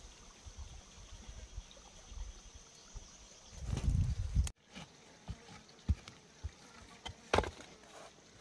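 A faint, steady, high insect buzz with scattered rustles and knocks of a person moving about and handling loose soil and bamboo; a louder low rumbling rustle about four seconds in cuts off suddenly.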